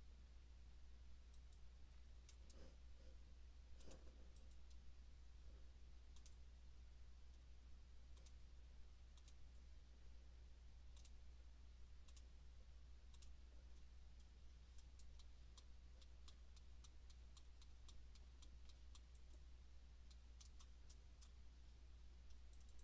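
Faint computer mouse clicks over a low steady hum, near silence otherwise. The clicks are scattered, then come in a quick run for several seconds past the middle.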